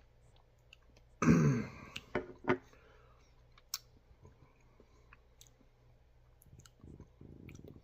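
A man clears his throat with a cough-like grunt that falls in pitch, then two shorter catches, followed by scattered faint clicks, in the lull after eating a very hot chili pepper.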